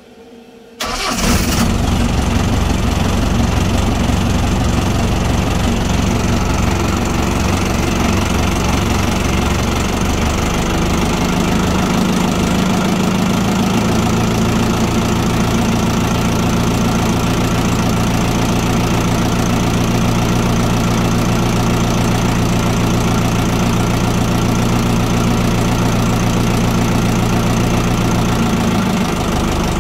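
One of the twin carburetted inboard engines of a Coronet Deep Sea 32 starting: a brief crank, then the engine catches about a second in and runs on at a steady idle, its note changing slightly around ten seconds in as it settles.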